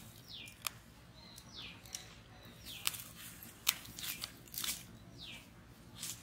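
Small birds chirping with short, quickly falling calls, over sharp snaps and crackles from a wood fire.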